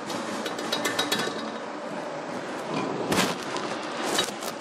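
Metal clinks and knocks from hand work on a tractor, a scatter of small taps with a louder knock about three seconds in.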